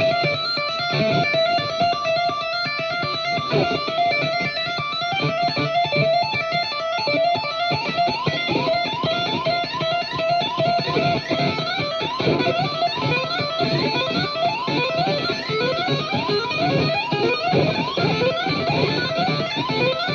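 Instrumental music on a plucked string instrument, dense with quick notes. A wavering held note runs through the first several seconds, and from about eight seconds in there is a steady stream of short rising slides.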